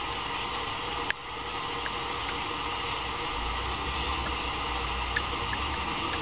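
Steady hiss of machine-like room noise with a low hum underneath, and a faint click about a second in.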